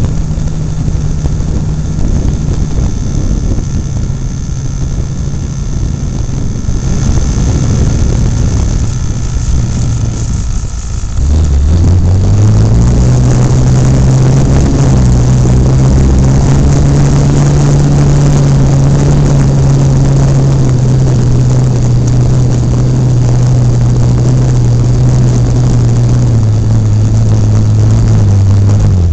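Radio-controlled model airplane's motor and propeller heard from a camera on the plane, with air rushing over the microphone. About eleven seconds in, the sound turns into a louder, steady low drone.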